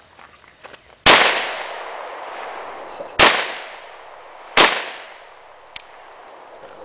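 Three pistol shots from a CZ 52 chambered in 7.62x25 Tokarev, about two seconds and then a second and a half apart. The first trails off in a long echo. These are the first rounds through a brand-new barrel as it is broken in.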